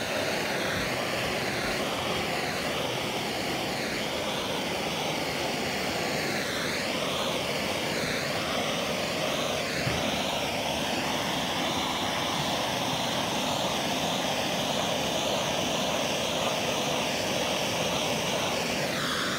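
Handheld gas torch burning with a steady blue-flame hiss, its tone wavering as the flame is swept back and forth, heat-shrinking window tint film to fit a car's curved rear glass.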